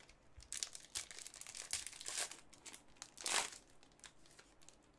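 Trading-card pack wrapper crinkling and tearing as it is opened and the cards are pulled out by gloved hands, with several louder crackles among the rustling.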